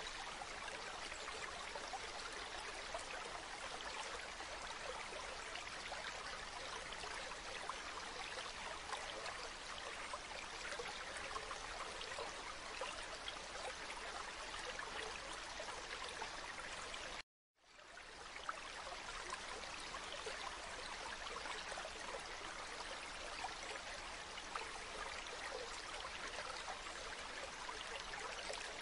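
Shallow stream water running steadily over pebbles, an even trickling rush. About two-thirds of the way through it cuts out to silence for half a second, then fades quickly back up.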